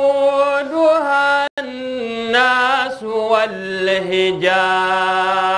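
Male voice chanting Quranic recitation (tajwid), drawing out long held notes that step and waver in pitch, with a brief break about a second and a half in.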